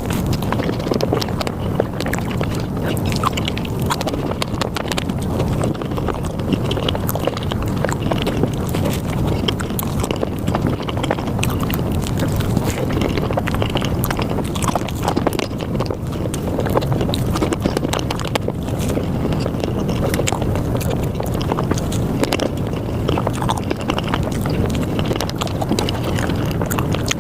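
Close-miked chewing and biting of Japanese fruit sandwiches (soft bread, whipped cream and fruit) sped up about five times, running together into a rapid, unbroken chatter of wet clicks and smacks.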